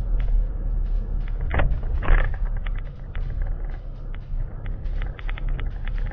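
Vehicle running along a road, heard from inside: a steady low rumble with many small irregular clicks and rattles, and two brief hissing swells about one and a half and two seconds in.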